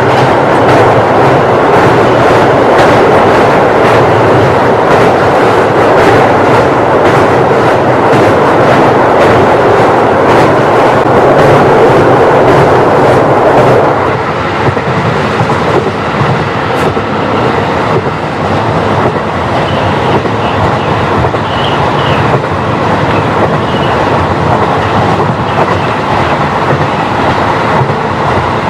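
KiHa 40 diesel railcar running, heard through an open window: steady running noise with wheels clicking over rail joints. It is loud, with a heavy rumble, while the train crosses a river bridge, then drops suddenly about halfway as the train comes off it onto plain track. A few faint, brief wheel squeals follow.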